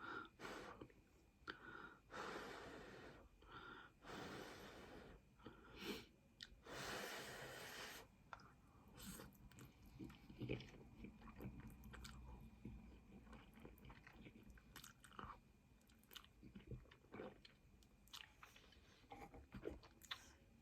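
Faint chewing of egg noodles, with soft wet mouth clicks. There are a few longer noisy stretches in the first eight seconds, then scattered small clicks.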